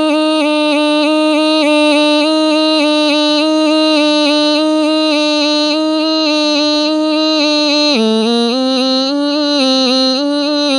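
A man's voice imitating a snake charmer's been (pungi): one long unbroken note held steady, which drops lower about eight seconds in and moves through a short wavering tune.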